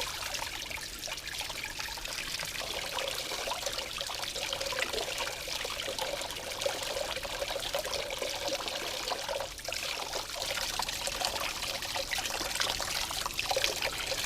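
Water pouring in a steady trickle.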